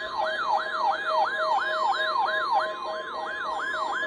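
Weather-radio alert tones for a required weekly test: a siren-like tone sweeping downward about three times a second, over a steady high tone and a lower tone beeping about four times a second.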